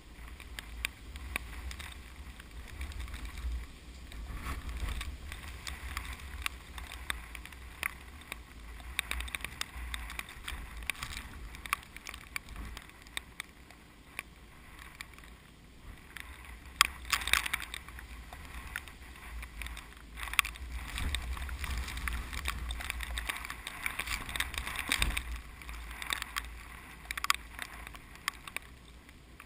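Gusty typhoon wind buffeting the microphone with a heavy rumble that swells and eases, over a rustling, crackling hiss of wind through the rice plants.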